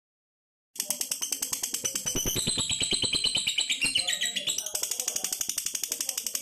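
Lovebird singing a long, unbroken chatter of fast, high pulses that starts suddenly just under a second in, with a higher whistled note laid over the middle.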